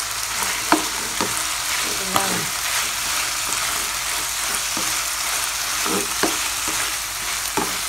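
Pork pieces sizzling in hot oil in a pan while a spatula stirs them: a steady frying hiss, with several sharp scrapes and knocks of the spatula against the pan.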